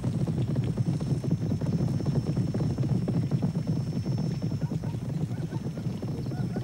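Herd of zebras galloping over dry ground: a dense, continuous drumming of many hooves.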